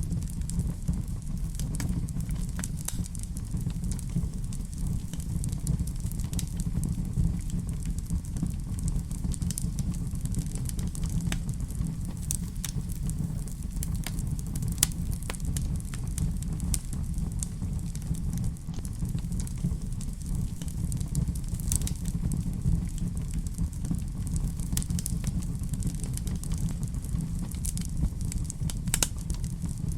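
Wood fire in a fireplace burning with a steady low rumble and irregular sharp crackles and pops.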